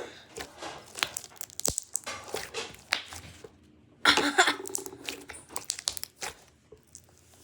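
Handling noises: a string of sharp clicks and rustles, with a louder rustling burst about four seconds in.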